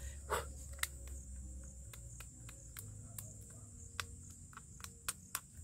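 Blue plastic packing strap clicking and crinkling in irregular snaps as it is handled and bitten through with the teeth, over a steady high drone of insects.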